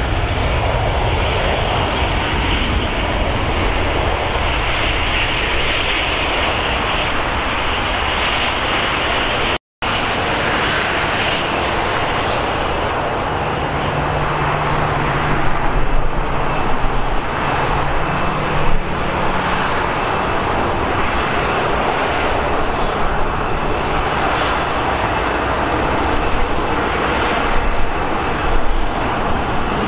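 Airliner jet engine noise: a loud, steady rumble and hiss with no letup. It breaks off for a split second about ten seconds in.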